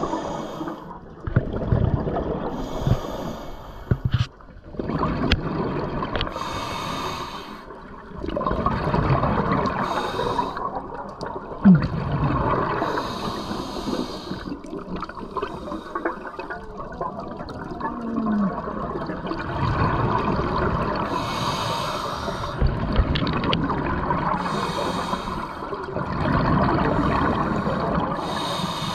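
Scuba diver breathing through a regulator: short hissing inhales every few seconds, each followed by a long bubbling rush of exhaled air.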